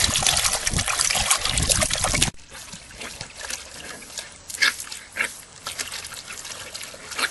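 A French bulldog splashing in a plastic tub of water, a dense loud splashing that cuts off suddenly about two seconds in. After that it is quieter, with a few short sharp sounds.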